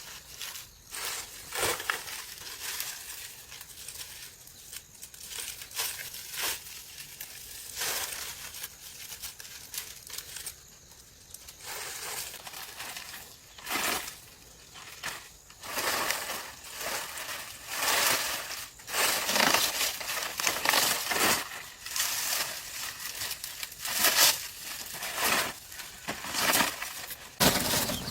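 Irregular crunching and rustling of material being handled, with scattered knocks, busier in the second half.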